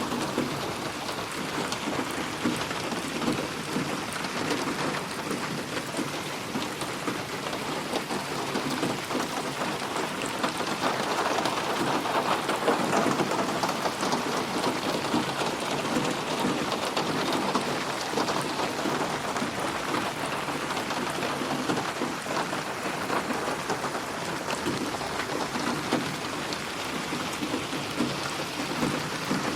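Steady heavy rain falling, a dense patter of close drops, swelling slightly about a third of the way through. It is processed as 8D audio, panned around the listener.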